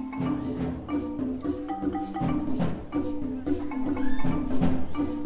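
Concert wind band playing an upbeat piece, with mallet percussion and drums striking out a quick rhythm under the sustained notes.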